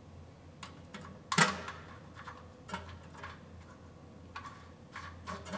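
Scattered light metal clicks and clinks as a torque converter inspection cover is fitted and its bolts started by hand, with one louder clank about a second and a half in.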